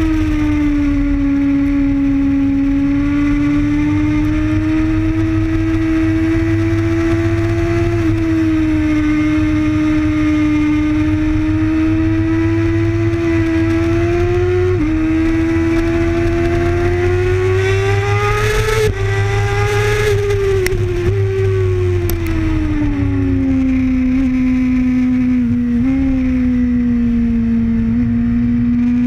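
Sport motorcycle engine at high revs heard from a camera mounted on the bike, over wind rush on the microphone. Its note climbs steadily under acceleration, drops sharply about two-thirds in, then falls as the bike slows and leans into a corner.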